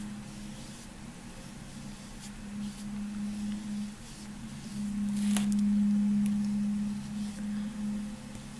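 A steady low hum that swells and fades, loudest a little after the middle, with a few faint soft clicks.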